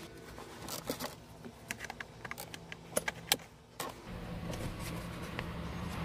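Plastic dashboard trim panels around a Toyota Avalon's steering column being handled and snapped into place: a series of sharp clicks and taps. About four seconds in, a steady low hum starts.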